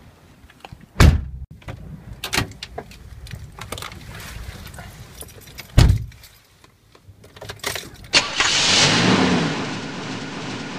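Car doors slamming shut, once about a second in and again just before six seconds, with small clicks, rustling and keys between. Near the end a louder steady rushing noise with a low wavering tone sets in.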